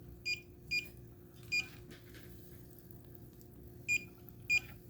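Volcano humidifier's control panel beeping as its buttons are pressed: five short, high electronic beeps at irregular intervals, three in the first two seconds and two near the end, over a faint steady hum of the unit running.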